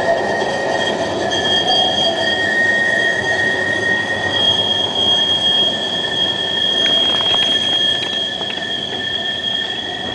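Luas tram's steel wheels squealing as it runs along a curve of grass-bedded track: two steady high-pitched squealing tones over the lower running noise of the wheels, easing slightly near the end.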